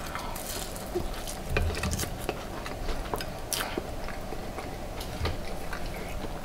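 A person chewing and biting food close to the microphone, with scattered sharp crackles and a few soft low thuds.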